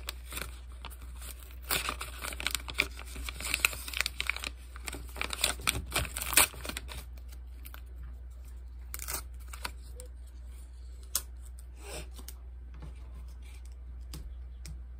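Packaging being torn open and crinkled by hand: a dense run of tearing and rustling for about five seconds, then only scattered soft handling clicks.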